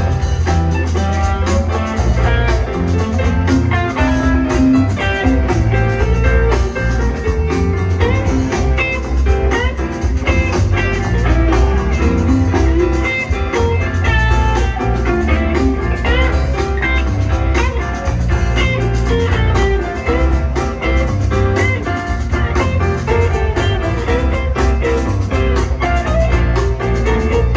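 Live rock band playing an extended jam: electric lead guitar playing runs of quick notes over steady bass and drums, heard from the crowd at a concert.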